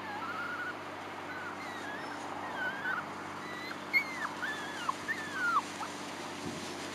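Braque du Bourbonnais puppies whimpering and yipping, a string of short high whines that bend up and down, the loudest about four seconds in.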